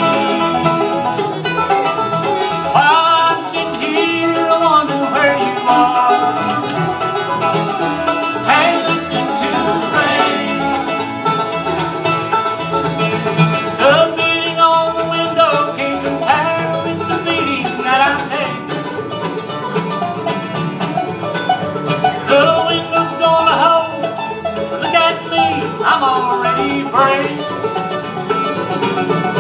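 Live bluegrass band playing, banjo and acoustic guitar to the fore, with fiddle, mandolin and upright bass in the ensemble.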